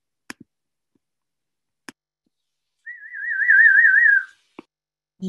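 One warbling whistle held for about a second and a half, its pitch wavering quickly up and down, as a cheer at the end of a speech. A few faint clicks come before it.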